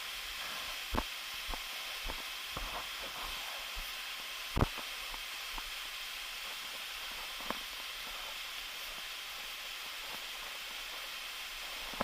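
A steady high hiss, with scattered knocks and thumps over it; the loudest thump comes about four and a half seconds in.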